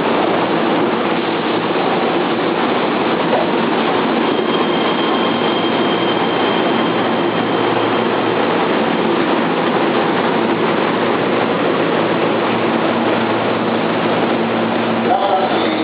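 Keihan 3000 series electric train running at speed: a steady rumble of wheels on rail and running gear, with a faint high whine for a few seconds.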